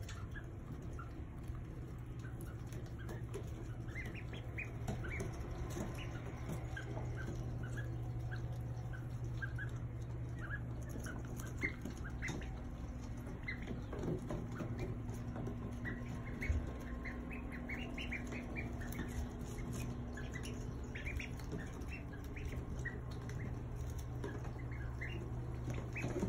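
Ducklings peeping in many short, high calls while they peck at a cabbage leaf, the calls coming thicker in the second half, over a steady low hum.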